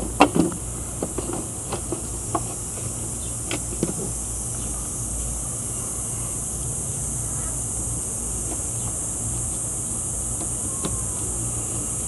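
A few light clicks and taps from the refrigerator's sheet-metal back panel being handled in the first four seconds, over a steady low hum and high hiss.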